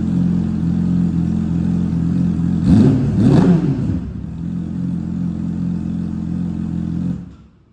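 Yamaha R6's inline four-cylinder engine idling through an Akrapovic exhaust, blipped twice about three seconds in and settling back to idle; the sound cuts off near the end. Its tone is firm with a pleasant bass.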